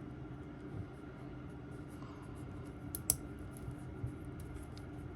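Faint clicks and rubbing from a coated-canvas watch strap and its metal deployment clasp being fastened on a wrist, with one sharper click about three seconds in, over a faint steady hum.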